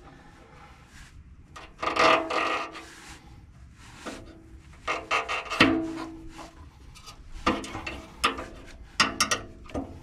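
A Kia Telluride's rubber exhaust hanger being pried off its steel rod with a plier-type exhaust hanger removal tool: squeaking and rubbing in several spells, the longest about two seconds in and again midway. Near the end come a few sharp clicks from the tool and the exhaust's metal parts.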